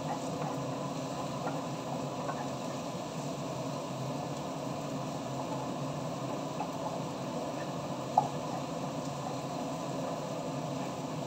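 Chopped onions, ginger and garlic sizzling steadily in hot oil in a frying pan as they are stirred with a wooden spatula. A single sharp knock about eight seconds in.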